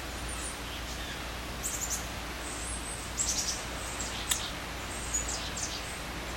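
Faint high chirps of small birds in short clusters, about two, three and five seconds in, over a steady hiss and low hum.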